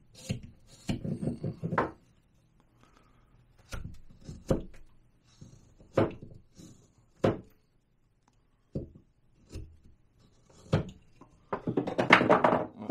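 Small carving knife paring basswood in short cuts, each a brief crisp scrape as a chip comes off, with a longer, louder cut near the end.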